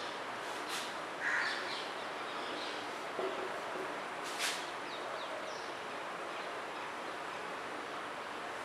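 A marker writing on a whiteboard, with faint scratchy strokes and a couple of sharp taps, over a steady background hiss. A short louder sound comes about a second in.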